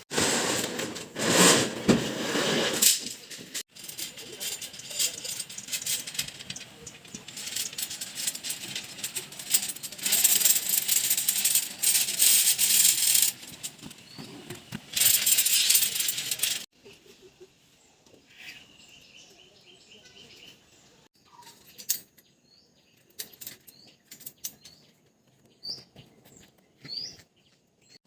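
Bursts of loud, hissy noise full of clicks and clatter, then an abrupt drop to a quiet background where small birds chirp in short rising notes, with a few sharp clicks.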